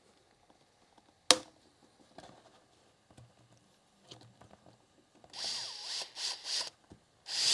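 Cordless drill-driver driving a screw, held on the bit with tape: a sharp click about a second in, then several short trigger bursts with the motor pitch rising and falling, and a steady run starting near the end.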